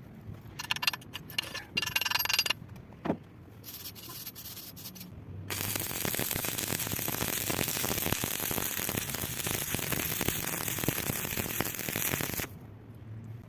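Electric arc welding: short bursts of arc crackle in the first couple of seconds, then a steady crackling, sizzling arc from about five and a half seconds in that stops about a second before the end.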